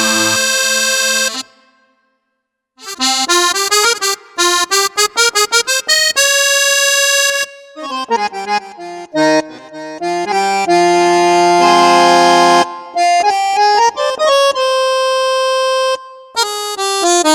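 Roland E-A7 arranger keyboard playing its musette accordion voice through its speakers. A held chord ends about a second and a half in; after a short pause come quick melodic runs and sustained chords.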